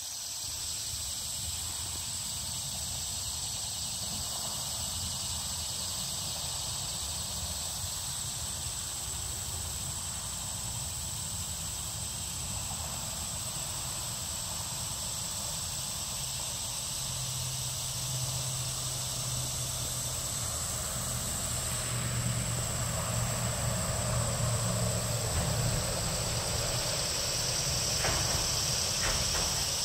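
A steady, high-pitched insect chorus over a low rumble, with a low hum coming in around the middle and two faint ticks near the end.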